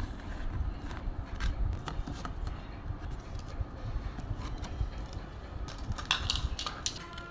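Handling sounds of a cut plastic bottle and a sheet of corrugated cardboard being moved about, with scattered small clicks and taps and a quick run of clicks near the end, over a low rumble.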